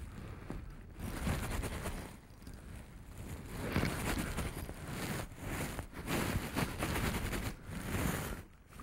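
Wind buffeting the microphone in uneven gusts, a rough rumbling noise that swells and drops, with some rustling.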